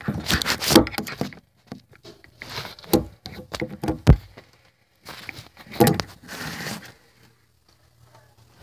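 Rustling, bumps and knocks of someone shifting about in a cramped closet, with sharp thuds about three and four seconds in.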